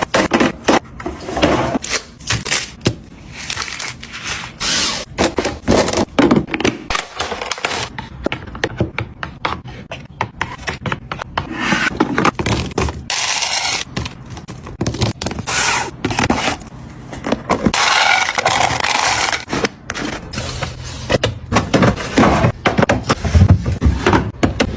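Refrigerator restocking: containers, bottles and packaged food being handled and set down, with many sharp knocks and clicks and stretches of packaging rustling and scraping.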